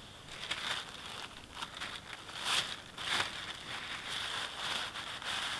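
Fabric of a stuff sack rustling and crinkling in irregular bursts as it is handled and stuffed, loudest about two and a half and three seconds in.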